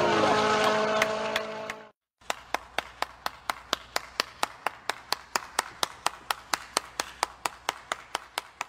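For about two seconds a rally car and the roadside spectators are heard; the car's tone falls away as it leaves. After a short gap of silence, one person claps steadily, about four claps a second.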